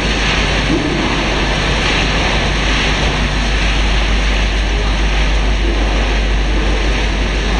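Fried-snack production line machinery running, a loud, steady mechanical noise without breaks.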